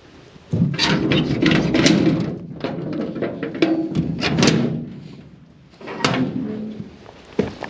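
Sheet-metal stable door rattling and clanging as its slide bolts are worked and it is swung open. The clatter starts about half a second in and goes on for about four seconds, with another burst about six seconds in and a single knock near the end.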